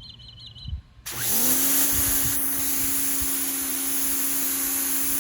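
Pressure washer starting up: about a second in its motor spins up to a steady whine, and the loud hiss of the water jet spraying the concrete runs with it.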